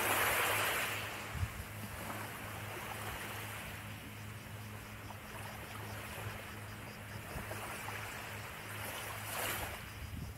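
Small waves lapping and washing onto a sandy beach: a louder wash right at the start and another near the end. A steady low hum runs underneath.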